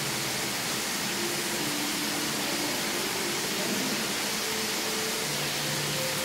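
A steady, even hiss, with faint low tones that shift in pitch now and then underneath.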